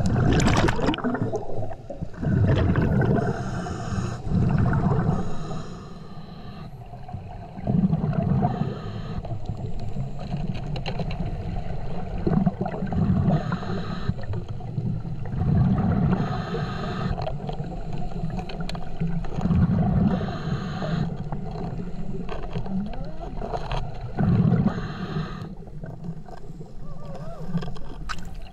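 Diver breathing underwater through a Brownies Third Lung hookah regulator: bursts of exhaled bubbles every few seconds, with regulator hiss in between.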